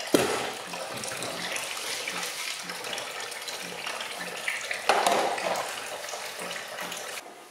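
Tap water running into a stainless steel sink while dishes are washed up, with knocks of plastic dishes being handled at the start and again about five seconds in. The water sound cuts off shortly before the end.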